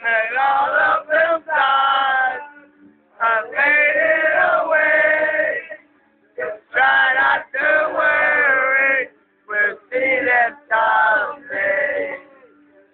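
Young men singing loudly together in short phrases with brief pauses between them.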